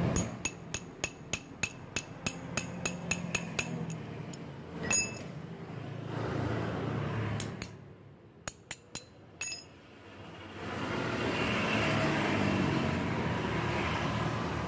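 Sharp metal-on-metal taps with a short ring, about three a second, as a new ball bearing is driven into the angle grinder's aluminium bearing housing with a steel rod. A few more scattered taps come about halfway through.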